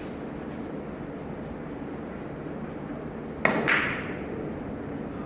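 A sharp click of billiard balls struck during a three-cushion carom shot, about three and a half seconds in, with a second bright ringing hit right after.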